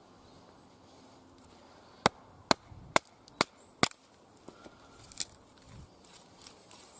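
Wood being split with a Cold Steel SRK knife: five sharp strikes about half a second apart, followed by lighter cracks and clicks of wood near the end.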